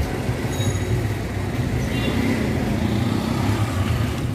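Road traffic noise: a steady low engine rumble from passing or idling vehicles.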